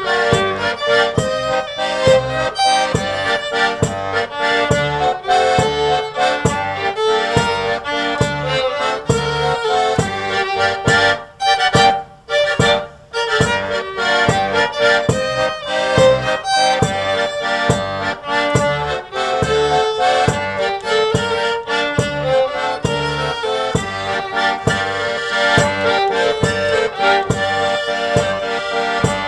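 Accordion and fiddle playing an instrumental traditional folk tune with a quick, steady beat, the sound dropping out briefly twice near the middle.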